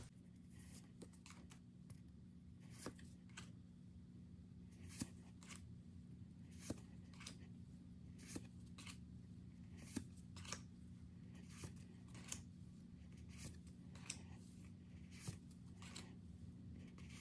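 Faint handling of Pokémon trading cards: soft ticks and rustles about once a second as cards are slid one behind another through a freshly opened pack, over a low steady hum.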